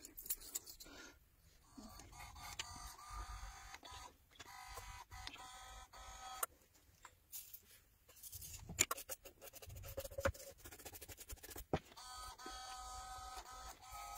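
Tools scraping and clicking against the glass and frame of a phone held in a screen-separation fixture. There are many sharp clicks and, for a few seconds at a time, a squeaky scraping with several steady high tones.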